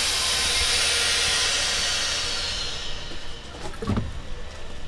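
Chamber vacuum packing machine letting air back into its chamber after sealing a bag: a loud hiss that starts suddenly and fades away over about three seconds. A short knock follows about four seconds in.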